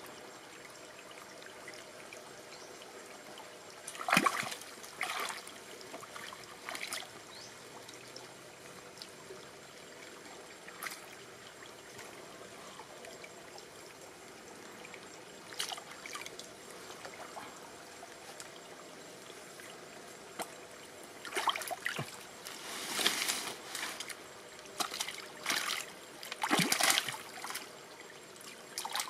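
Shallow stream water trickling steadily while hands grope and splash in it to catch fish, with a few loud splashes about four to seven seconds in and a busier run of splashing near the end.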